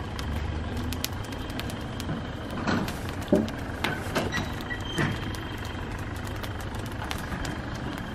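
A straw fire burning hard: a steady low rush with many sharp crackles throughout.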